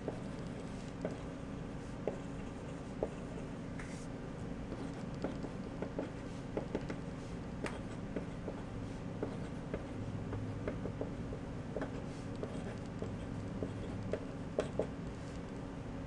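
A Staedtler Graphite 760 0.5 mm mechanical pencil with HB lead writing on paper: the lead scratching with many small irregular ticks as letters are formed, over a steady low background hum.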